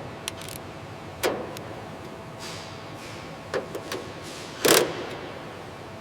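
A handful of sharp clicks and knocks over a faint steady hum, the loudest knock near the end.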